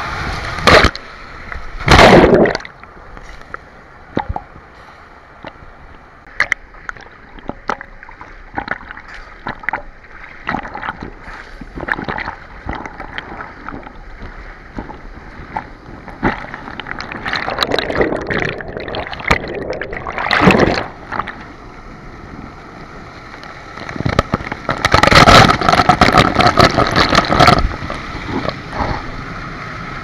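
Waterfall pouring and splashing right onto the camera, with a constant crackle of drops striking it. Loud rushes of water come about two seconds in, around twenty seconds, and again for several seconds near the end, as the camera passes through the falling stream.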